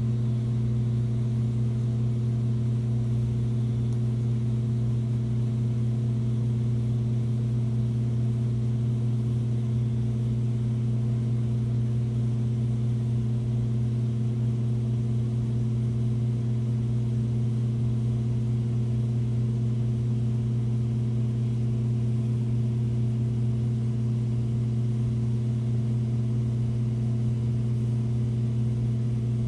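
Aquarium pump humming steadily with a low, unchanging tone.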